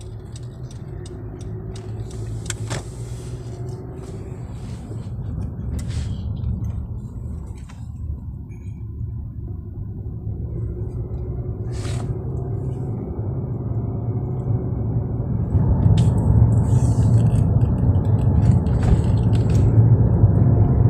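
Car cabin road noise: the engine and tyres rumble steadily as the car drives along. The rumble grows louder and heavier in the last few seconds, and there are a few brief clicks.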